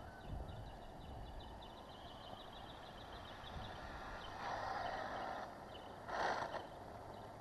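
Traxxas XO-1 electric RC car running on asphalt, with two short, louder rushes of motor and tyre noise in the second half as it comes in close. A faint, even high ticking runs underneath in the first few seconds.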